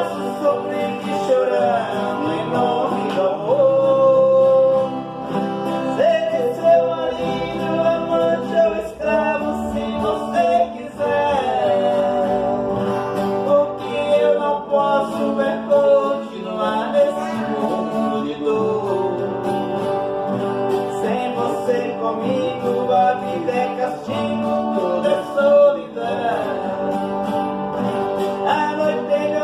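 Music: a guitar-accompanied song with a melody line that bends in pitch over it.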